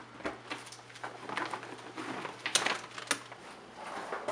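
Objects being handled on a kitchen counter: a string of light, irregular knocks and clicks, with two sharper clacks about two and a half and three seconds in.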